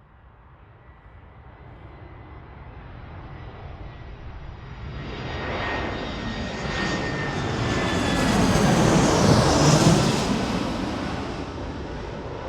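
Private jet coming in to land and passing close by. Its engine whine and roar build steadily, are loudest about nine seconds in, then ease off as the high whine slides down in pitch.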